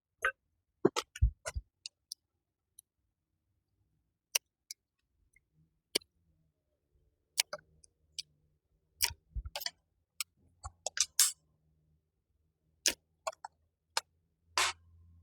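Hand pruning shears snipping honeysuckle vine stems: irregular sharp clicks and snaps, a few with a dull thump, with quiet gaps between them.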